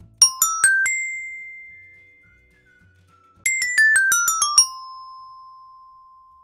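Short musical jingle of bright bell-like chimes: four quick rising notes that ring out, then a little past three seconds in a quick falling run of about eight notes, the last one held ringing.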